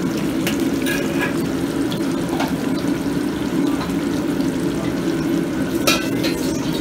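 Commercial wok range: a steady rush of running water and burner noise while a wet wok is scrubbed out, with a few sharp metal clinks of woks and ladle.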